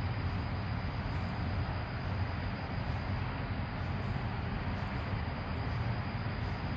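Steady low rumble of background noise, even throughout with no distinct events.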